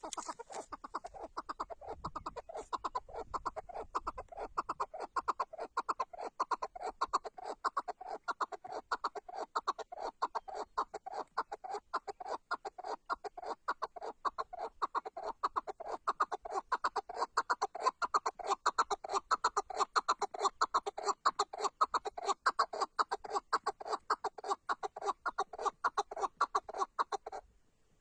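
Chukar partridge (keklik) calling: a long, fast run of clucking chuk notes, several a second, growing louder, then breaking off sharply near the end.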